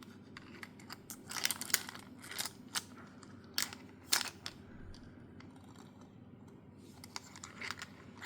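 Irregular light plastic clicks and rattles from a bead orbit ball fidget toy being turned in the hand, its beads moving through the rotating rings. The clicks come in clusters, thinning out for a couple of seconds past the middle before picking up again near the end.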